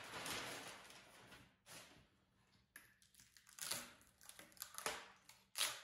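Freezer paper rustling and crinkling as it is peeled off a freshly vacuum-pressed veneered panel, fading out over about the first second and a half. After that come a few brief, soft handling sounds as the panel is gripped and shifted on the plywood caul.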